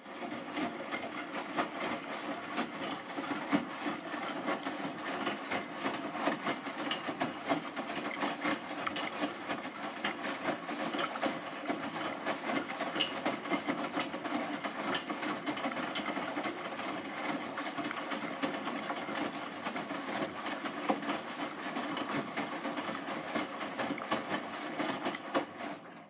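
Hotpoint NSWM 843C front-loading washing machine in the wash phase of a full load: the drum turns, tumbling wet clothes through the water with a steady sloshing noise.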